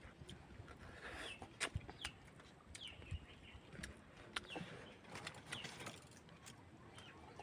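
Faint birds chirping: short falling calls repeated about once a second, mixed with scattered sharp clicks.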